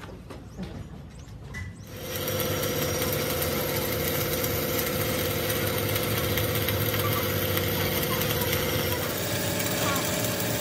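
Arc welding on a truck's rear axle housing: a steady, loud hiss from the welding arc over a low, even hum, starting abruptly about two seconds in. Before that, quieter workshop sounds with a few light clicks.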